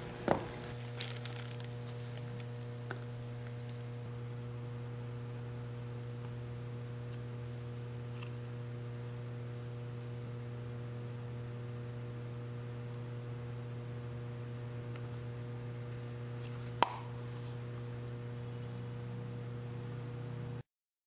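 Steady electrical mains hum, with a few brief clicks near the start and one sharp click about seventeen seconds in. The sound cuts off abruptly just before the end.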